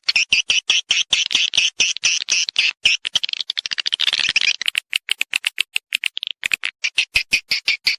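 Edible-nest swiftlets' mating call: rapid high chirps at about six a second, running together into a dense twitter near the middle and then going on as sharper separate clicks. It is the kind of call played to lure swiftlets to nest in a swiftlet house.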